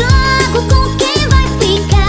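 Rock doido electronic party music from a DJ set: a heavy kick drum beating about twice a second under a wavering, pitch-bending melodic lead.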